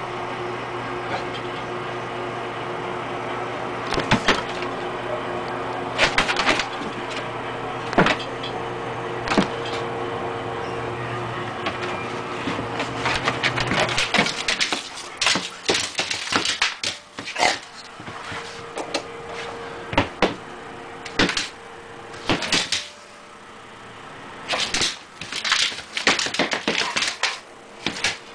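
Sharp clicks and knocks of a dog's claws and paws scrabbling on a wooden floor as a puppy plays wildly, scattered at first and coming thick and fast from about halfway through. A steady hum sits under the first half and stops about halfway.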